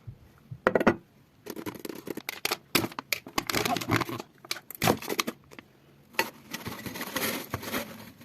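Sweets and their packaging being handled and laid on a platter: irregular rustling and crinkling with small clicks and knocks.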